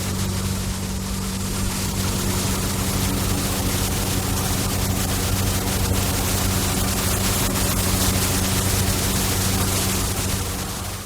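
Street-cleaning truck running steadily: a low engine hum under a loud, even hiss. The sound fades out at the very end.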